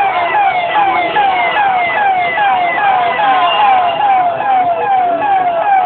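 Emergency-vehicle siren in a fast repeating pattern, each note falling in pitch, about two to three times a second.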